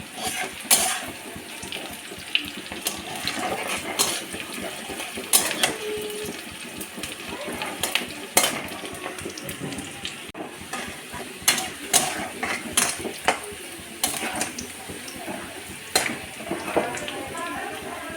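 Metal kitchen utensils clinking and clanking against pots and pans, in irregular sharp knocks of varying loudness.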